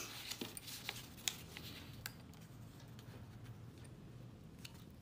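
Faint rustle of a sheet of paper being handled and folded on a tabletop, with a few light ticks and taps.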